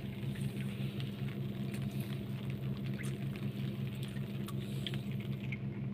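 An engine runs steadily with a low, even hum, with scattered faint ticks and light water patter.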